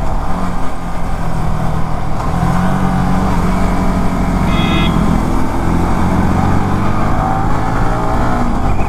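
Yamaha sport motorcycle riding on the road, its engine note rising gradually under throttle, with heavy wind rush on the microphone.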